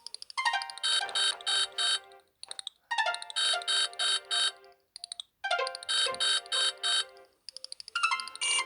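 Nokia C5-03 mobile phone ringtone: a short synthesized electronic phrase, a quick run of high notes followed by four bright pulsed chords, repeating about every two and a half seconds.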